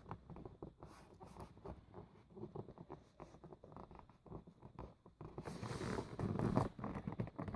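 Cardboard door of a Rituals advent calendar being picked at and pulled open: faint scratching and small clicks, then louder rustling and tearing of card from about five seconds in.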